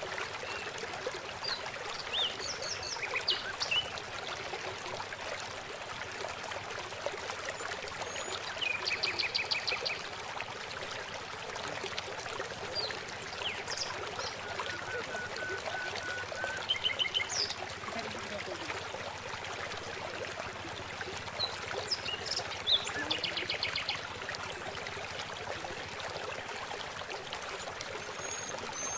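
Steady rush of flowing water with small birds chirping now and then, including two quick trills of rapidly repeated high notes.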